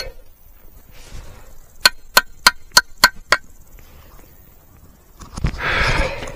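A shovel chopping in a dig hole in turf, six sharp knocks about three a second, then about a second of rough scraping and rustling near the end as the buried iron piece is worked loose.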